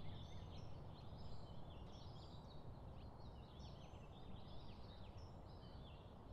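Faint chorus of small birds chirping and twittering, many short quick notes overlapping, over a low steady background noise of outdoor ambience.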